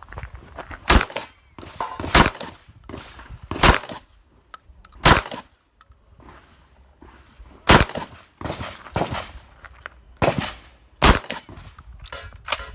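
Shotgun fired in a string of about seven shots, one every second or so with a pause of about two and a half seconds in the middle, and fainter knocks and clatter between the shots.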